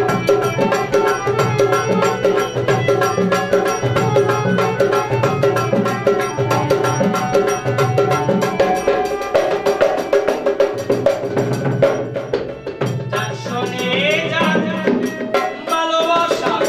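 Instrumental interlude of a Bengali folk song: a keyboard instrument holds and plays the melody, a two-headed barrel drum beats a steady rhythm, and small hand cymbals tick along.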